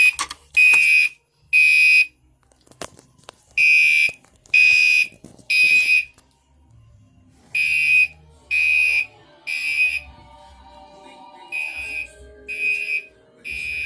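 Gentex Commander 3 fire alarm horn sounding the temporal code 3 evacuation pattern: three short, high horn blasts about a second apart, then a pause, the group repeating about every four seconds, four times.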